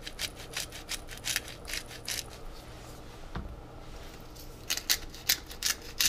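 Hand pepper grinder twisted over a pot, a quick run of dry grinding clicks in two spells, with a pause and a single knock in between.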